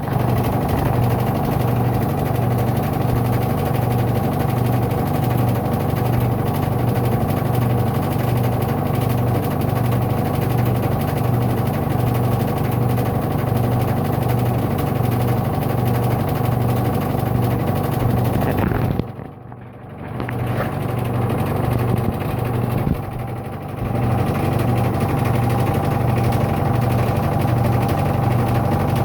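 Electrolux washing machine running with a loud, steady mechanical drone and a low hum that pulses evenly several times a second, making the excessive noise it is being recorded for. The sound drops away sharply for a moment twice, about two-thirds of the way through.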